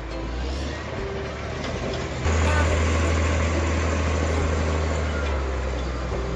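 Heavy machine's engine running with a steady low hum, growing louder and rougher about two seconds in.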